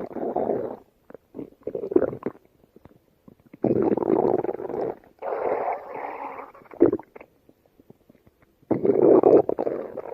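A stomach growling and gurgling in several spells, each about a second long, with short crackly pauses between them.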